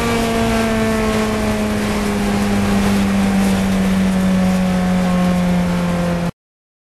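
Fiat 124 Coupe race car's twin-cam four-cylinder engine heard from inside the cabin at high revs, with road and wind noise; its note falls slowly as the car slows from top speed. The sound cuts off suddenly about six seconds in.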